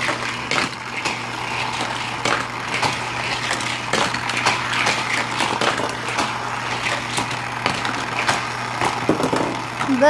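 Battery-powered Hot Wheels track booster running with a steady whir and hum, with scattered clicks and rattles of die-cast cars on the plastic track.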